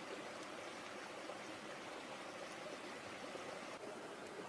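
Faint, steady rushing background noise with no distinct events.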